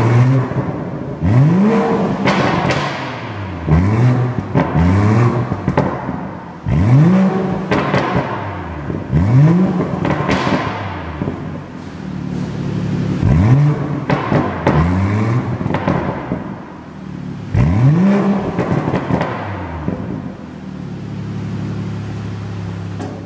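BMW M140i's 3.0-litre turbo straight-six revved over and over in quick blips through an Akrapovič exhaust with the gasoline particulate filter removed and the original catalytic converter kept. The revs fall away with sharp pops after each blip, and near the end the engine settles to a steady idle.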